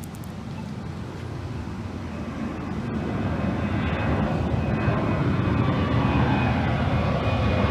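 Airplane flying close by, its engine noise growing steadily louder as it approaches, with a faint high whine coming in about halfway through; the sound cuts off suddenly at the end.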